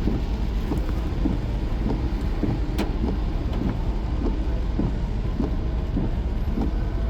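Steady low rumble of a car driving in the rain, heard from inside the vehicle, with one sharp click a little under three seconds in.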